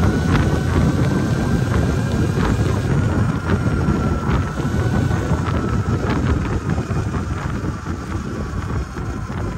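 Wind buffeting the handlebar-mounted microphone of a moving Sur-Ron electric dirt bike, with a thin motor whine drifting slightly up and down in pitch as the speed changes, and occasional light clicks.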